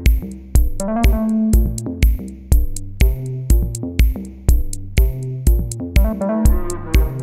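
Background music with a steady beat, about two strokes a second, under held melodic keyboard notes.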